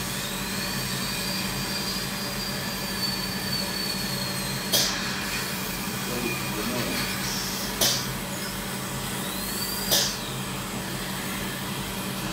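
Dental drill whining at a high pitch over a steady hiss and low hum. The whine cuts off a little under halfway through and comes back briefly, rising, about two seconds before the end. There are three sharp clicks.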